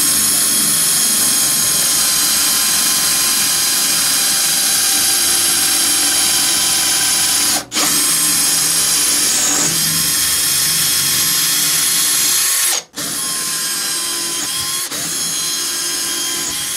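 Electric drill running steadily with a masonry bit, in plain rotary mode without hammer action, boring into ceramic wall tile. It cuts out briefly twice, about 8 and 13 seconds in, and is a little quieter after the second break.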